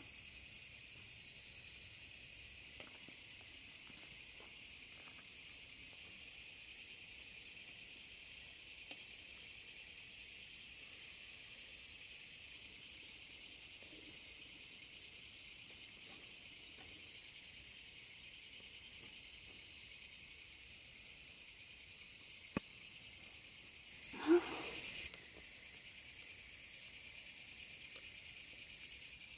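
Night insect chorus: crickets chirring steadily, with a thin, high, unbroken trill over it. A single sharp click comes once, and near the end a short, louder sound with a gliding pitch.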